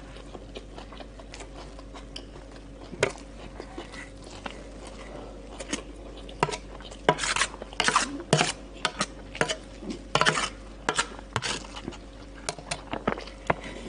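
Metal spoon scraping and clinking against a stainless-steel tray while scooping up rice: a sharp click about three seconds in, then a busy run of clinks and scrapes from about six to twelve seconds in.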